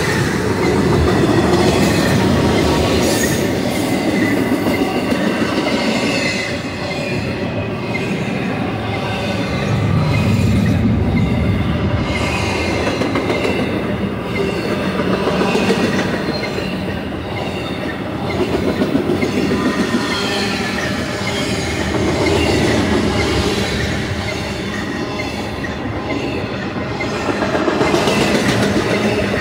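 Freight train well cars rolling past: a steady rumble and clatter of steel wheels on the rails, with a faint high ringing over it. The sound swells and eases every few seconds as the cars go by.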